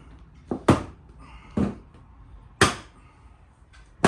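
A few sharp plastic knocks and clacks, a quick double about half a second in, then single ones at about 1.6 s and 2.6 s and another at the very end, as a car's bumper cover is tugged on and pushed against its mounting clips.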